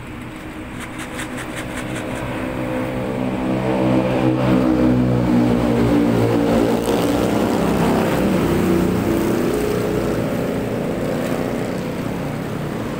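A motor vehicle's engine passing close by on the road: it grows louder over the first few seconds, stays loud for a while, then slowly fades.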